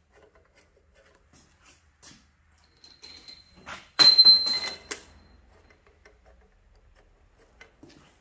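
Steel head bolts clinking against each other in a hand and being dropped into the bolt holes of a cast-iron cylinder head: scattered light clicks, with a louder ringing metallic jingle lasting about a second around four seconds in.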